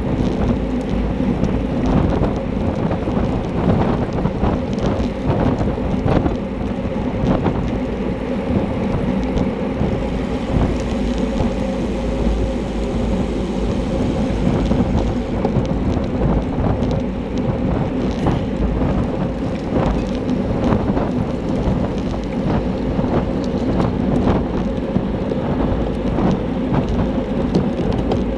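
Wind buffeting and road rumble on a handlebar-mounted camera microphone on a racing bicycle at speed, with many small knocks and rattles from the bike.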